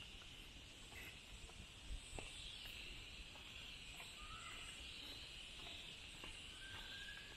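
Faint, steady high-pitched insect chorus, heard as an even hiss. Soft footsteps on a wooden boardwalk sound about once a second, and two short bird chirps come near the middle and near the end.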